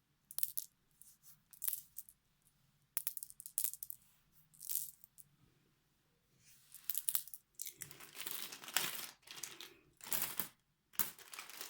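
Plastic packets of craft beads being handled and crinkled, in short separate rustles and clicks at first, then more continuous crinkling through the second half.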